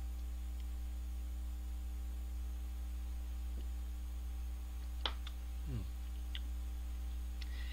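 Steady electrical mains hum picked up in the microphone's recording chain, with a faint click about five seconds in.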